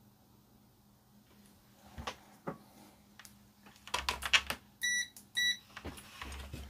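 Two short electronic beeps from a digital multimeter's continuity tester, used to check freshly soldered component legs for solder bridges. Clicks and light knocks of the probes being handled come before and around them.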